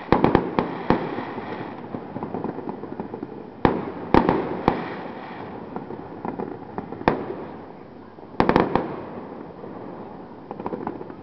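Fireworks bursting: sharp bangs, some in quick clusters just after the start, around four seconds in and around eight and a half seconds in, each trailing off in an echo.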